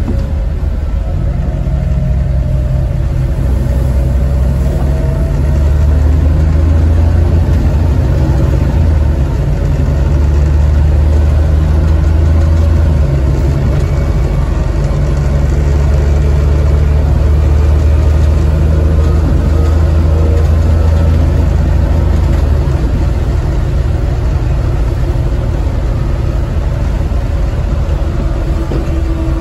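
Volvo B7TL double-decker bus's six-cylinder diesel engine heard from inside the passenger saloon, running under load as the bus drives. It is a deep, loud rumble that swells in several longer pulls through the middle, with short dips between them, then eases off near the end.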